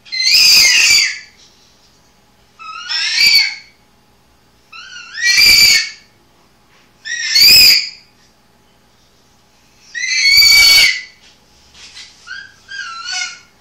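Repeated shrill, piercing squeals, one about every two seconds, each bending in pitch, with softer, shorter squeaks near the end.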